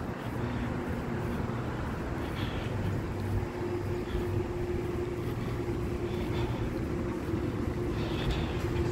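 City street traffic noise: a steady rumble of vehicles with a constant hum running under it.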